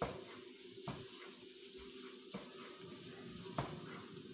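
Stir-fry of shredded vegetables in a frying pan: a soft sizzle while a wooden spatula stirs and tosses, knocking against the pan about four times.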